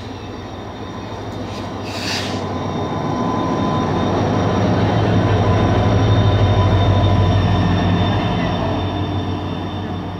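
A diesel locomotive passing close by on the adjacent track, its engine hum and rumble building to a peak about six seconds in, then giving way to the rumble of its coaches rolling past. A brief hiss comes about two seconds in.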